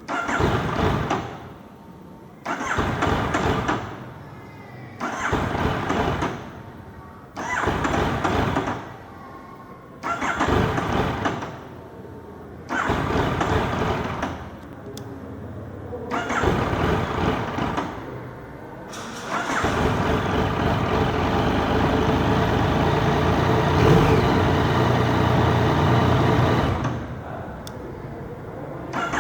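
A Yamaha MT-09's starter cranking its three-cylinder engine in about seven short tries of a second or two each, separated by pauses, followed by one longer spell of about seven seconds. This is hard starting when hot, after a 30-minute ride.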